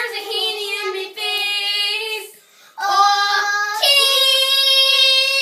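Young girls singing in put-on silly voices: a few sung notes, a short break about halfway, then one long steady high note held to the end.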